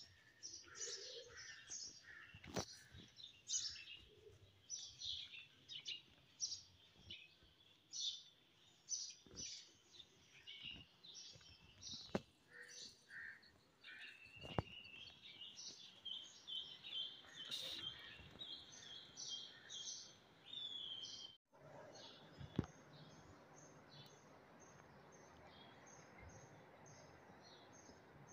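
Many small birds chirping in quick, short, high calls, with a few sharp clicks among them. About three-quarters of the way in the sound briefly cuts out, and a quieter steady hiss follows with fainter chirps.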